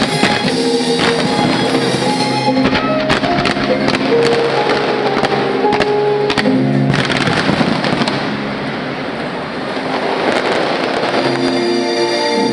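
Aerial fireworks bursting and crackling over show music that plays throughout. A dense crackling hiss swells from about halfway through.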